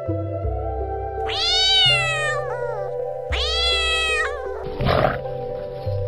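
Two long meows, each rising then falling in pitch, the second following about half a second after the first ends, over steady background music; a short rough burst of noise comes about five seconds in.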